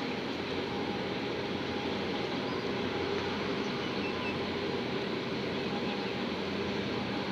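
Steady machinery hum and rumble of a large container ship passing close by, a few constant hum tones over an even rumbling noise with no change in level.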